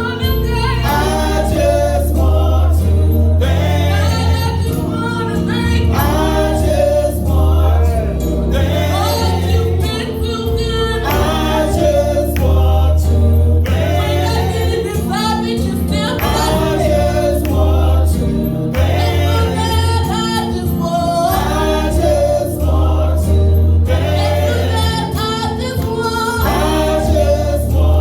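Gospel choir singing with instrumental backing: a strong steady bass and held keyboard chords under the voices.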